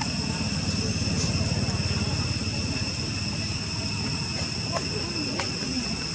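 Steady high-pitched drone of insects, held at several pitches at once, over a low rumble, with a few faint clicks in the second half.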